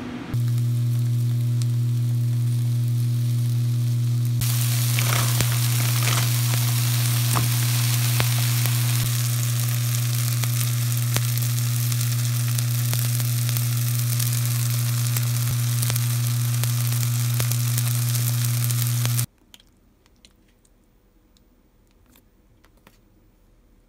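Fried rice sizzling in a frying pan over a steady low hum, the sizzle coming in loud about four seconds in, with the clicks and scrapes of a spatula stirring. It all cuts off suddenly near the end, leaving only a few faint clicks.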